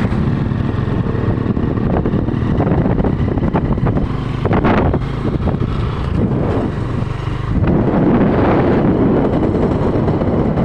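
Motorcycle engine running steadily while riding along a road, with wind buffeting the microphone; it gets louder about eight seconds in.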